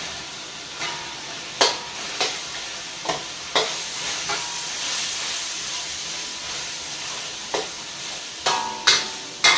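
Shrimp and chicken sizzling in a hot stainless-steel wok while a metal spatula stirs them. The spatula clinks and scrapes against the wok about once or twice a second, with a run of louder clinks near the end.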